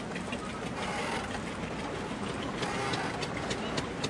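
Busy harbour ambience: a boat engine running under a steady din, with many sharp clicks and clatters throughout.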